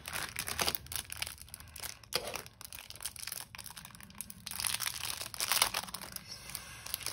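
Packaging crinkling and rustling in irregular bursts as it is handled and opened.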